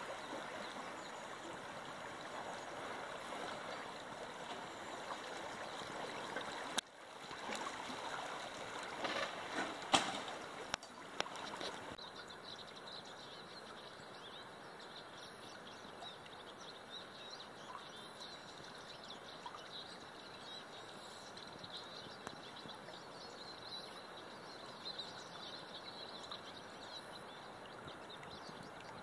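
Flowing river water: a steady rush and babble of the current, with a few brief knocks about a third of the way in.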